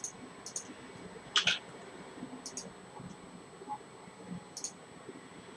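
Computer mouse and keyboard clicks: four short sharp clicks, several doubled like a button pressed and released, the loudest about a second and a half in, over a faint steady room hum.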